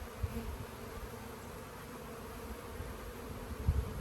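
Honeybees buzzing steadily in a dense hum around an open, strong hive during an inspection. A few low thumps come through about a quarter second in and again shortly before the end.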